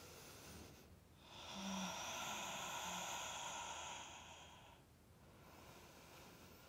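A woman breathing audibly: one long, slow exhale begins about a second in and fades out after about three seconds, with fainter breath sounds either side.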